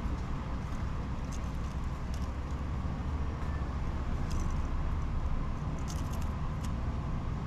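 Steady low background rumble with a few faint, brief ticks scattered through it.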